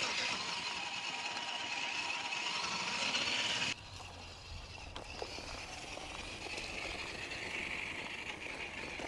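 GMADE Buffalo GS02F RC crawler running on an electric motor, its motor and gears whining with a steady tone as it drives over dry dirt. Louder for the first few seconds, then it drops suddenly to a fainter, more distant whine with a low rumble.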